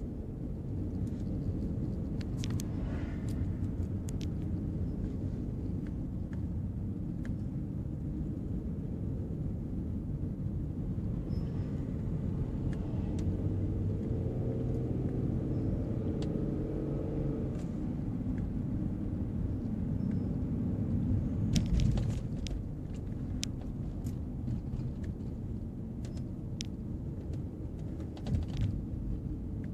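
Inside a moving car's cabin: a steady low rumble of the engine and tyres on pavement, with a few scattered light clicks and rattles.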